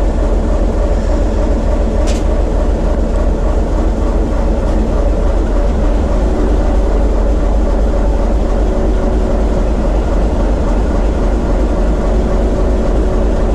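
TEM2 shunting locomotive's diesel engine running steadily under heavy load on the fourth controller position, driving the main generator into a water rheostat load bank during running-in after a major overhaul. A short click sounds about two seconds in.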